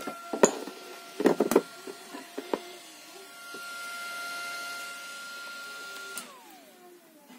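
Small built-in cooling fan of an XHP-50 LED headlight bulb running with a steady whine, over a few sharp clicks and knocks in the first three seconds. A little past six seconds the whine falls smoothly in pitch and fades as the fan spins down.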